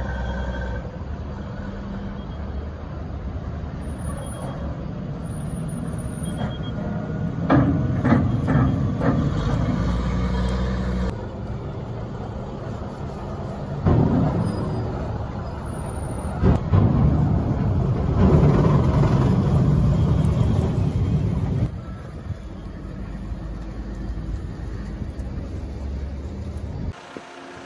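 Stryker eight-wheeled armoured vehicle's diesel engine running as it drives down a cargo ship's steel ramp, with several loud knocks as it rolls over the ramp, about 7 to 9 seconds in and again around 14 and 16 seconds. The engine sound drops somewhat after about 22 seconds.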